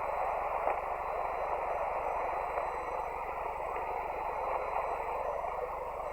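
Steady static hiss from an HF ham radio receiver on 40-metre SSB, band noise with no signal in it while waiting for the other station to transmit.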